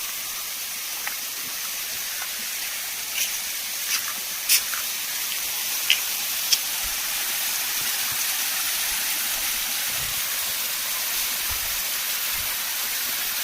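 Water falling over the rock face of a small waterfall running low in the dry season, a steady hiss. A few faint short clicks come about three to six seconds in.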